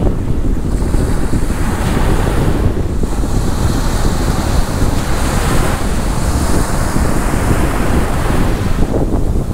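Wind buffeting the microphone with a heavy rumble over the hiss of surf washing up a sandy beach; the surf hiss swells up about a second in and eases off near the end.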